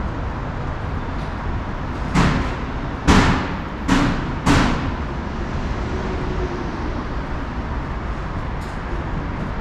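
Steady traffic and city noise on an open elevated platform. About two seconds in, four sudden loud noises come in quick succession, each fading within about half a second.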